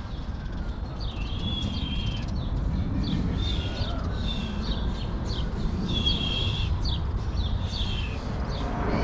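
A bird calling over and over, a string of short high notes, some drawn out for nearly a second, over a steady low rumble.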